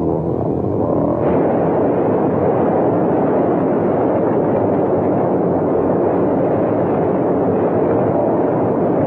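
Loud, steady rumbling noise with no pitch in a film soundtrack; a sustained music chord dies away about a second in.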